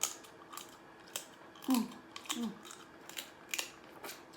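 Snow crab shell being cracked and snapped apart by hand, a run of about ten sharp clicks and cracks, with two short hums from the eater in the middle.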